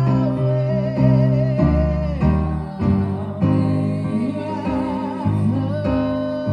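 Live church worship music: a voice holds long, wavering sung notes over a moving bass line and plucked guitar.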